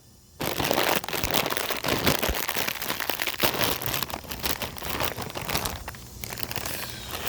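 Crinkling of a plastic potato-chip bag being handled. A dense run of crackles starts about half a second in.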